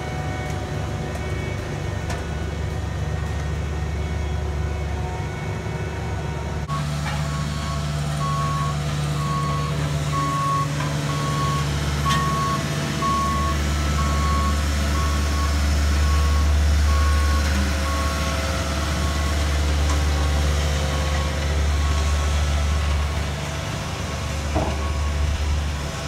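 Diesel engines of asphalt paving machines running with a steady low rumble. From about a quarter of the way in, a backup alarm beeps about once a second over it, with one sharp knock near the end.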